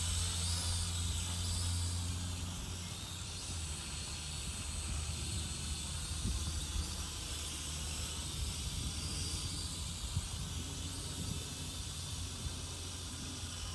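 Wind buffeting the microphone: a low rumble under a steady hiss, the rumble easing slightly after about two seconds.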